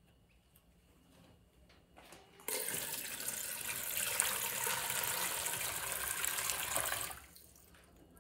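Water poured from a jug into the upper tank of a Zazen alkaline countertop water filter, filling it to start filtering. The steady splashing pour starts about two and a half seconds in, runs for about four and a half seconds, then dies away.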